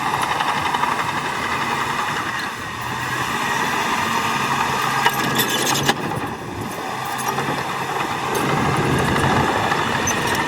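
Shantui DH17 C2 bulldozer's diesel engine running steadily, with a couple of sharp knocks about five to six seconds in.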